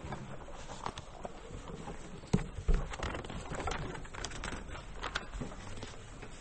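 Scattered light knocks, taps and rustling of people handling songbooks and things on the table, with a couple of louder knocks about two and a half seconds in.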